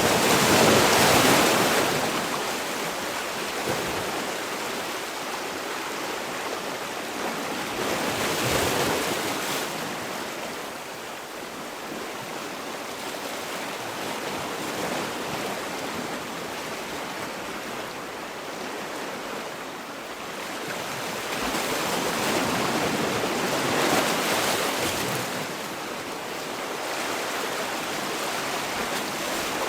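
Sea waves breaking and washing on a shore, in a steady rush with surges about a second in, around eight seconds in, and again between 22 and 25 seconds.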